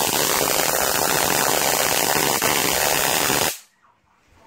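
High-voltage arc drawn from a ZVS driver's flyback transformer with a bottle-and-bucket capacitor connected: a loud, steady, dense crackling buzz that cuts off suddenly about three and a half seconds in.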